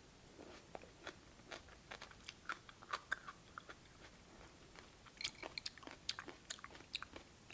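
Faint close-up mouth sounds of someone chewing cold cucumber soup with tomatoes: scattered crisp crunches and wet clicks, coming thicker about five to six seconds in.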